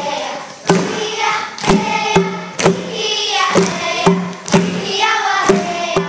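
A group of children singing a chant together, with sharp strikes keeping a regular beat under the singing.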